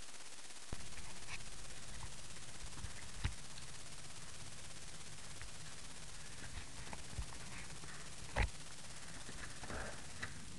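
Steady hiss from a mini helmet camera's microphone as the camera is moved about, with a few short handling knocks and rubs; the loudest knock comes about eight seconds in.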